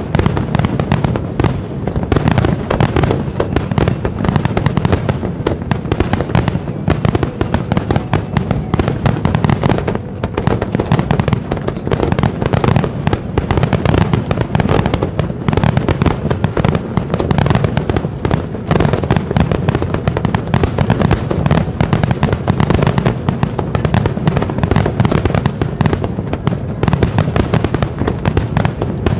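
Fireworks display going full tilt: a dense, unbroken run of bangs and crackling bursts, many every second, with no pause.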